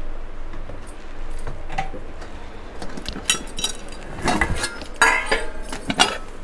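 Kitchen utensils and containers clinking and knocking together, a handful of sharp clinks in the second half, while whole spices are being measured out.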